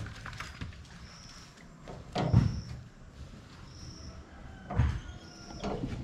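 Clunks and dull thuds of a wheelbarrow of coconuts being emptied and handled, loudest about two and five seconds in. A bird gives a short high call about every second and a half.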